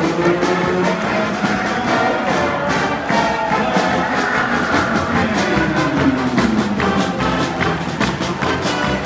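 Pep band playing: trumpets, trombones, saxophones and sousaphones over a drum kit keeping a steady beat.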